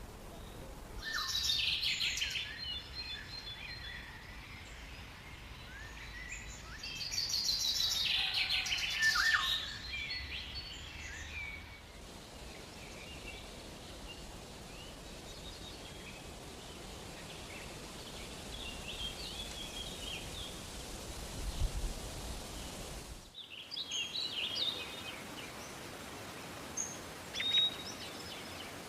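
Tropical forest birds calling over a steady background hiss: two bouts of rapid high chirping about a second in and around eight seconds, then scattered chirps near the end.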